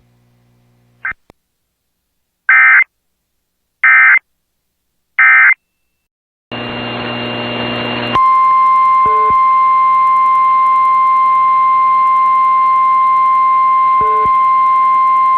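Emergency alert header: three short bursts of warbling SAME data tones, about a second and a half apart, then a short stretch of radio hiss. About eight seconds in, a loud, steady single-pitched alert tone starts and holds on; this is the NOAA Weather Radio 1050 Hz warning tone that comes before a warning.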